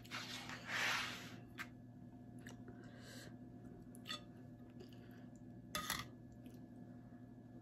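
Quiet eating of porridge: a short breathy noise about a second in, then a few scattered sharp clicks typical of a spoon touching a bowl, over a faint steady room hum.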